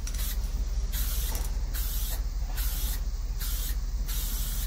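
Aerosol can of automotive spray paint spraying in about six short bursts with brief gaps between them, as the paint goes on in quick passes. A steady low rumble runs underneath.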